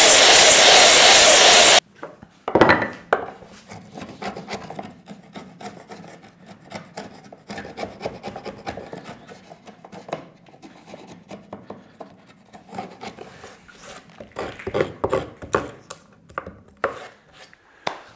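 A sliding mitre saw cutting for the first couple of seconds, stopping abruptly. Then a bench chisel pares the waste out of a trench in a softwood 2x4: a heavy knock, then many short scraping cuts and light taps.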